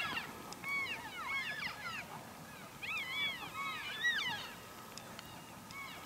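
Elk herd of cows and calves calling: many short, overlapping chirps and mews, each rising and falling in pitch, thinning out over the last second or so.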